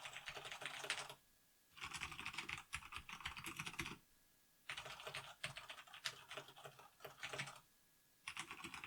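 Mechanical keyboard with Cherry MX Brown switches being typed on quickly in four runs of rapid key clicks, with short pauses between them.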